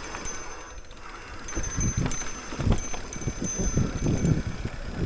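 YT Decoy MX mountain bike riding over rough trail: uneven low rumbling of tyres, suspension and wind on the microphone, with faint high metallic ringing coming and going.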